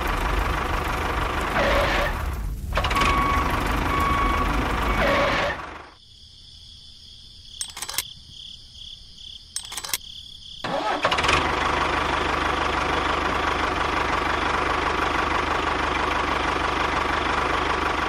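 Tractor engine running steadily. About six seconds in it drops away to a quiet stretch with a few small clicks, then comes back and runs on steadily.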